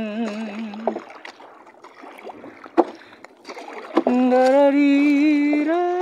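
A man singing a wordless 'la la' tune in long, wavering notes while paddling a small wooden outrigger canoe; the singing breaks off about a second in and starts again about four seconds in. In the gap, paddle strokes swish the water, with a few sharp knocks of the paddle against the boat, the loudest near the middle.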